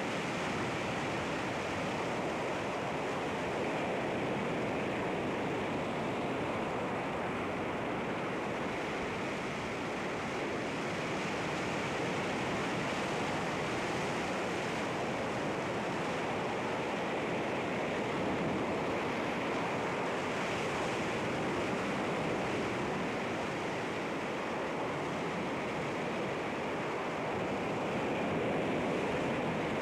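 Sea waves breaking on rocks, a steady wash of surf that swells and eases gently.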